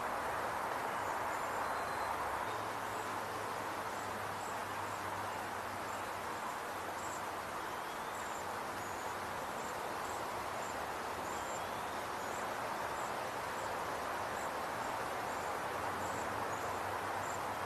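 Waxwings calling: short, very high, thin notes repeated every half second or so, over a steady rushing background noise.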